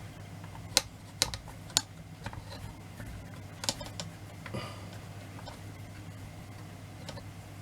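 Scattered light clicks and taps of small metal clock parts and tools being handled, several in the first couple of seconds and a few more midway, over a steady low hum.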